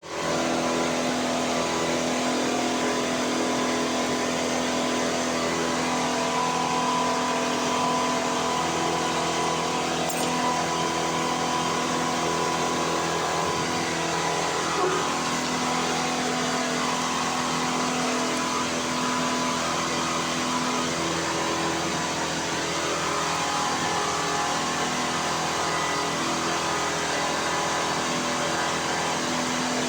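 3D printer running, its stepper motors humming in steady tones that shift in pitch every few seconds as the moves change, over a constant even hiss.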